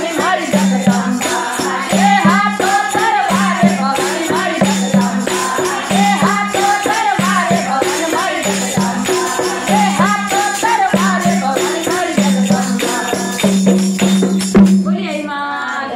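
Women singing a Rajasthani devotional bhajan together to a hand-played dholak drum and jingling hand percussion, in a steady beat. The drum stops about a second before the end.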